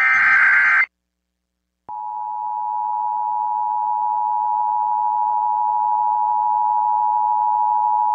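Emergency Alert System tsunami-warning tones: the last burst of the SAME digital header, a buzzy data burst under a second long, then after a second of silence the steady two-tone EAS attention signal starts and holds, with a faint hiss behind it. The tones announce a National Weather Service tsunami warning.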